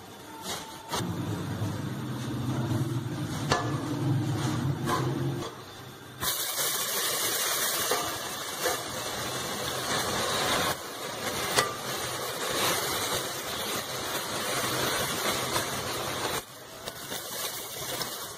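Milk hissing and sizzling on hot caramel in an aluminium pot from about six seconds in, stopping abruptly near the end, after a few seconds of a low hum. A wooden spoon knocks against the pot a few times.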